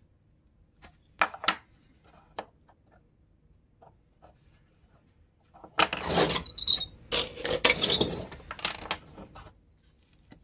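Small wooden cut-out pieces being handled on a table: a few light knocks of wood on wood about a second in, then several seconds of dense rubbing and rustling as the pieces are taken apart and moved.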